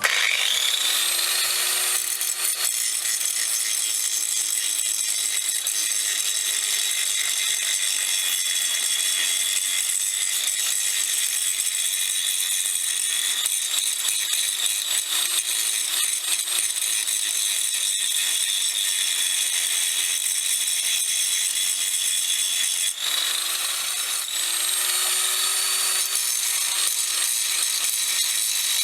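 Electric power tool motor spinning up and running steadily at speed. It briefly dips about 23 seconds in, then spins up again.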